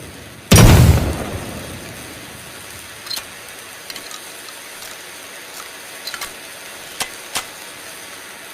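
A single loud double-barrel shotgun blast about half a second in, trailing off over about a second, followed by a few faint clicks over a steady low hiss.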